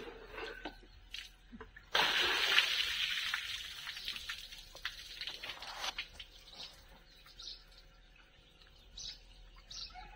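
Water thrown from a bowl splashes onto the tractor suddenly about two seconds in, then trickles and drips off it. A few short bird chirps follow near the end.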